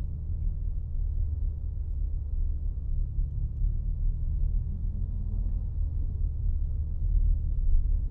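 Steady low rumble heard inside the cabin of a BMW G82 M4 under way: its twin-turbo straight-six engine and road noise.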